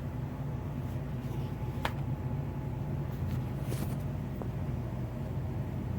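Steady low hum, with a few faint clicks and taps.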